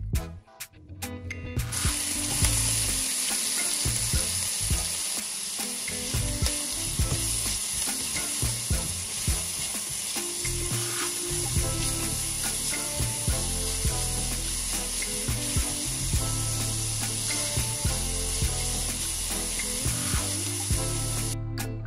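A few knife chops on a wooden cutting board, then from about two seconds in diced onion and bacon sizzle steadily in a frying pan while a spatula stirs them, scraping and tapping the pan. Background music plays underneath.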